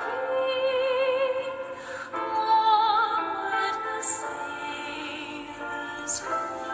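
Music with a sung melody in an operatic style, the voice wavering with vibrato on its held notes.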